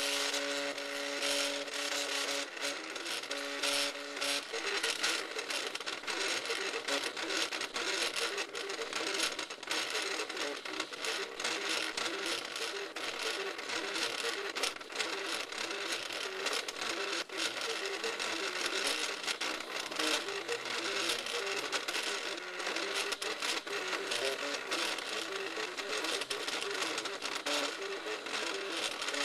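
MakerBot 3D printer running a print: its stepper motors whine in shifting pitches as the extruder and build platform move. The motor tones hold steady for the first few seconds, then change pitch quickly and irregularly, over a steady hiss.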